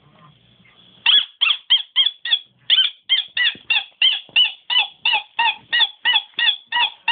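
A dog squeaking instead of barking: a quick, even run of short squeaks, about three a second, each arching up and down in pitch.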